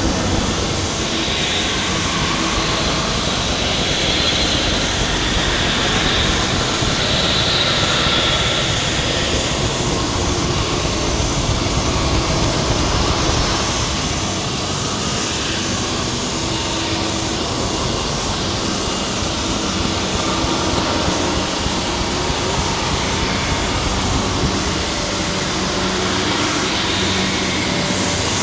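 Abstract experimental noise music: a dense, steady wall of hiss and rumble with hazy bands that drift slowly up and down.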